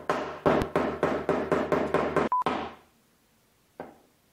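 Small hammer driving a nail into a wooden kit piece: a quick run of about a dozen ringing strikes, roughly four a second, that stops about halfway through. One more light strike follows near the end.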